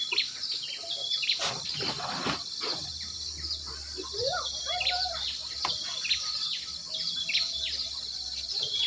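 Steady high-pitched insect chorus, with many short, quick bird chirps repeating over it.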